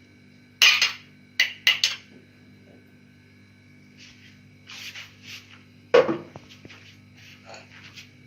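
Kitchen utensils clinking against a bowl as cut fruit is tipped in. A quick run of sharp clinks comes about a second in, then softer clatter, then one heavier knock about six seconds in followed by a few light taps.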